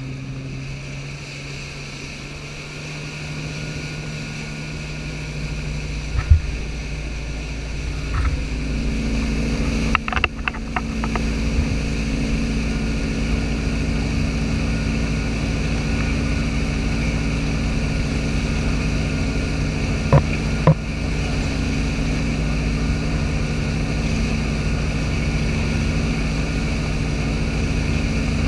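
Axis T22 wake boat's inboard engine running steadily under way, with water rushing from the churning wake. It grows louder over the first several seconds as the boat comes up to surfing speed, and a few short sharp knocks stand out along the way.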